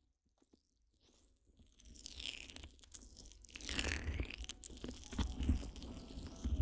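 Fingers massaging an ear slick with petroleum jelly, right over a Roland CS-10EM in-ear binaural microphone. The sound is close, wet rubbing and crackling with a low rumble, and it starts about two seconds in.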